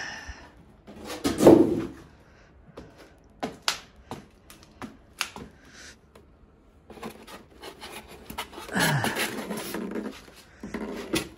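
Polystyrene packing and a cardboard box being handled as drill press parts are lifted out: scattered knocks and taps, a louder scrape or thump about one and a half seconds in, and a longer stretch of rubbing and scraping from about seven seconds.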